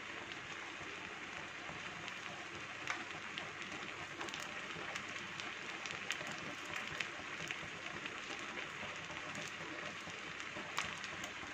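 Vermicelli in jaggery syrup sizzling and bubbling in a frying pan over raised heat as the liquid cooks off: a steady hiss with small crackles and a few light clicks.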